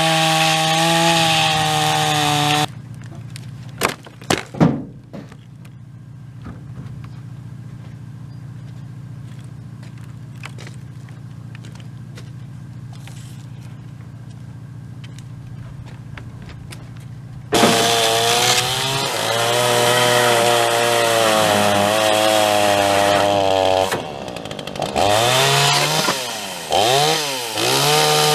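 Chainsaw cutting wood at full throttle, then dropping to idle for about fifteen seconds, with a few sharp knocks soon after it drops. It then revs up and cuts again, the engine pitch sagging and wavering under load.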